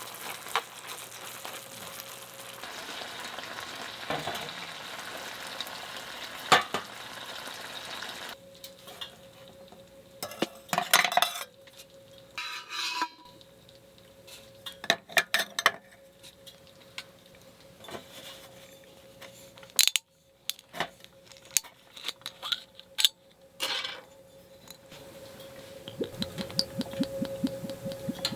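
Food sizzling in a pan for the first several seconds, then metal utensils clinking and knocking against cookware in a series of short, separate strikes.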